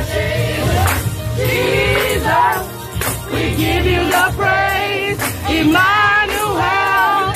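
Live gospel music: a choir of voices singing over band accompaniment with a deep bass and a steady percussive beat.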